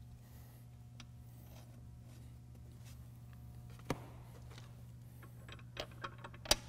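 Sharp metallic clicks of steel rim wedges and nuts being fitted by hand onto the wheel studs of a split-rim truck wheel: one click about four seconds in, then a quick cluster of clicks near the end, the last the loudest. A steady low hum lies underneath.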